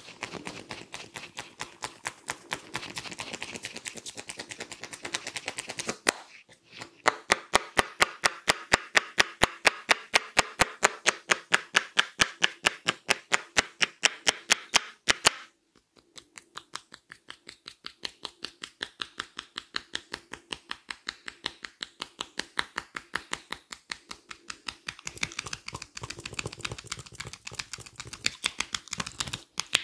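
A barber's hands tapping rapidly and rhythmically in a head massage, about six taps a second. The tapping is loudest through the middle, stops for a moment, then goes on more softly.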